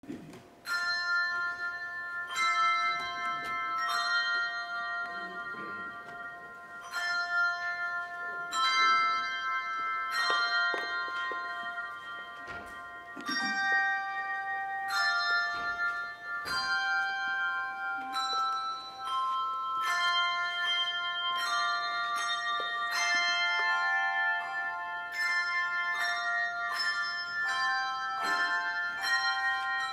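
Instrumental bell music: a slow melody of struck bell notes that ring on and overlap, the notes coming closer together in the second half.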